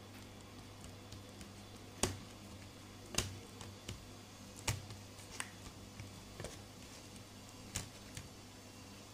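Homemade shaving-foam slime squeezed and pulled by fingers in a plastic bowl of water, giving irregular sharp clicks and small pops, four of them louder than the rest. A steady low hum runs underneath.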